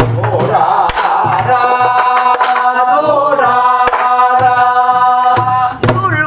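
Korean folk song (namdo minyo) sung in long held notes, one wavering near the middle. Strokes on a buk barrel drum keep the beat, mixing dull low thumps with sharp knocks.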